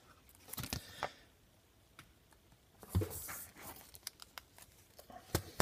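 A trading card being slid into a clear plastic sleeve and rigid top loader: a few short rustles, scrapes and clicks of plastic, with a quiet stretch in the middle.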